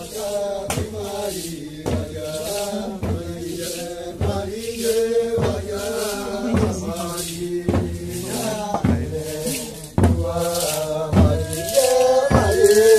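Tuyuka ritual dance: a group of voices chanting in unison over a regular percussive beat from the dancers, about one and a half beats a second. The sound gets louder about ten seconds in.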